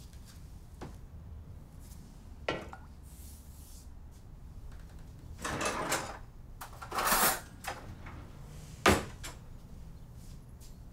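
Kitchen sounds of dishing up a meal: a light knock, then two short scraping sounds about halfway through, and a sharp clack of crockery near the end, over a low steady hum.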